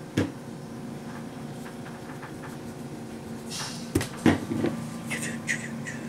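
Light knocks of a pencil and eraser being set down and handled on a tabletop: one about a quarter second in and two close together around four seconds in. A steady low hum runs underneath.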